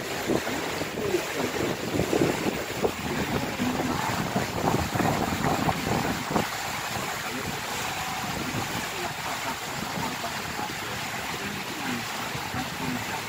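River cruise boat underway: a steady rush of water and wind noise, with uneven louder buffets during the first half.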